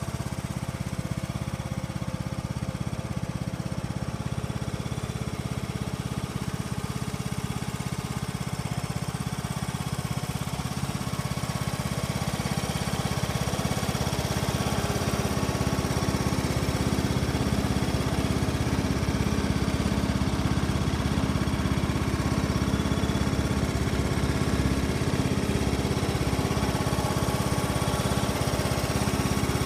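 John Deere LA125 riding lawn mower's engine idling steadily, growing somewhat louder partway through.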